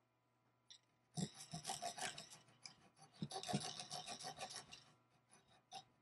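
The small serrated saw on the back of a survival multi-tool's knife blade is sawing into a block of construction wood held in a vise, in two runs of quick back-and-forth strokes. The blade is getting bound up in the cut.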